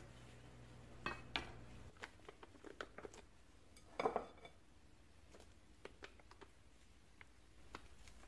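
Kitchen handling sounds: two sharp taps of a knife on a wooden cutting board while a lemon is cut. Then light clicks and clinks of utensils and glass, with a slightly louder cluster about four seconds in.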